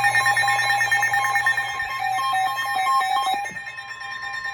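Emergency Alert System alert tones between two coastal flood warnings: loud, steady electronic tones with a fast buzzing pattern over them. The tones drop off sharply about three and a half seconds in, and fainter ones carry on to near the end.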